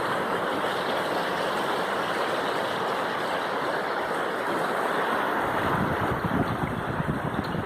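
Waterfall rushing in a steady roar. Wind buffets the microphone in low gusts from about two-thirds of the way in.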